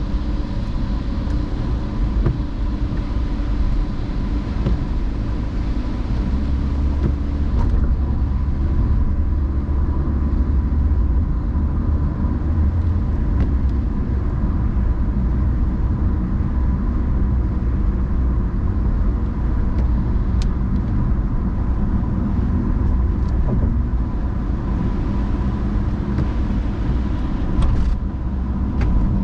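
A car driving on rain-wet roads: a steady low rumble of engine and tyres that swells for several seconds early on, with a few faint ticks.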